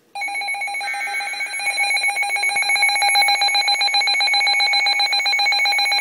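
NOAA weather alert radios sounding their warning alarm: rapid electronic beeping on several high pitches together, growing louder over the first few seconds. It is the alert for a received Severe Thunderstorm Warning.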